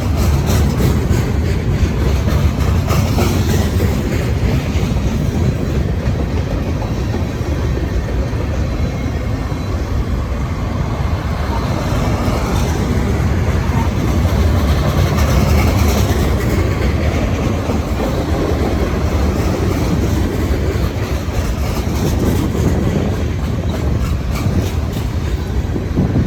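Freight cars of a long Norfolk Southern merchandise train rolling past: a steady rumble of steel wheels on rail, with runs of clicks as the wheels pass over rail joints.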